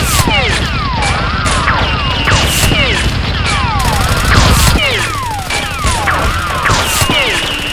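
Dubbed gunfire sound effects: a fast string of shots mixed with repeated whistling zings that fall in pitch.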